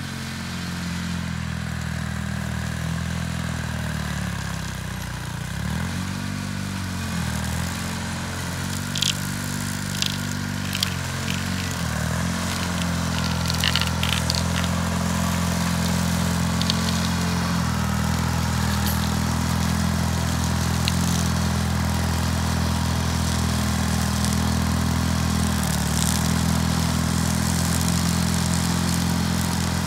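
John Deere 440 crawler dozer's engine running while the machine works a dirt pile, its pitch dipping briefly several times in the first twelve seconds, then holding steady. A few sharp metallic clanks come around the middle.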